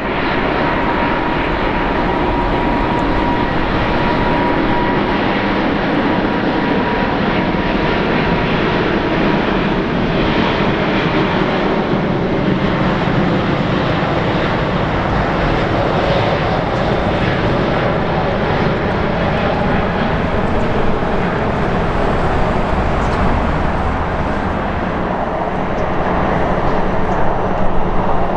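Airbus A380's four Engine Alliance GP7200 turbofans at takeoff thrust during the takeoff roll: steady, loud jet noise with a faint whine near 1 kHz in the first few seconds. It grows louder and more uneven near the end as the aircraft rotates.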